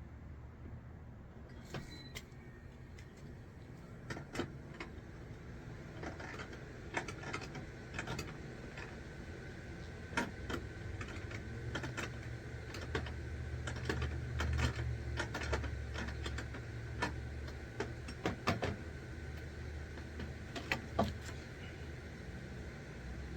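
Irregular clicks and knocks of hands handling tools and parts, busiest in the second half, over a steady low rumble.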